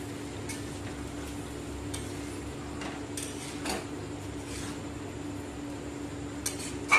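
Metal spatula stirring and scraping mixed vegetables around a metal wok, in scattered strokes, with a sharp clink of metal on metal near the end. A steady low hum runs underneath.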